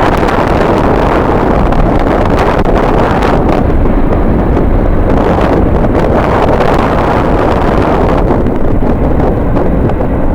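Strong wind buffeting the microphone: a loud, rumbling rush of noise that swells and eases in gusts every few seconds.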